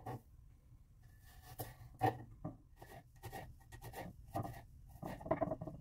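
Kitchen knife slicing garlic cloves on a wooden cutting board: soft, irregular taps of the blade on the board.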